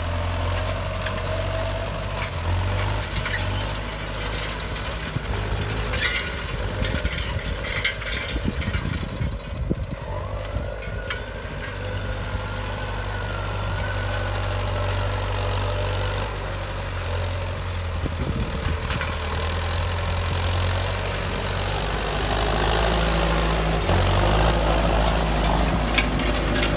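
John Deere 6330 tractor engine running steadily while pulling a field cultivator through the soil, with scattered rattles and clatter from the implement. Over the last few seconds the scrape and rattle of the cultivator's tines and rollers on the clods grows louder.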